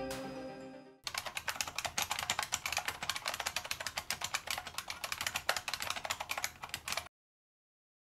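Rapid keyboard typing clicks, a dense run lasting about six seconds that cuts off abruptly. In the first second, a chiming mallet-percussion music cue fades out.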